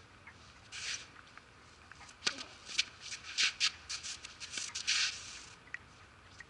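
Tennis racket striking the ball on a serve about two seconds in, then several more sharp ball strikes and short scraping scuffs of shoes on the court surface as the player runs in to volley.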